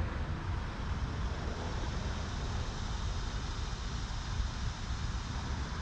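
Steady low outdoor rumble of wind and road traffic, with no distinct event.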